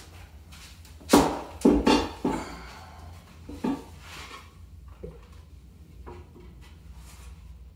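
Several sharp knocks and clatters from a hammer and wooden pieces being handled and set down. The loudest three come in quick succession about a second in, then a few quieter ones follow.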